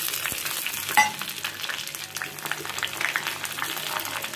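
Dried fenugreek leaves (kasuri methi) and bay leaves sizzling and crackling in hot ghee in a small steel pan as a tempering, stirred with a steel spoon. There is a sharp metallic clink about a second in.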